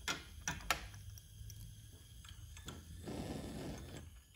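A few light clicks and knocks of glass and metal lab equipment being handled on a bench in the first second. About three seconds in comes a soft rushing noise lasting about a second, over a low steady hum.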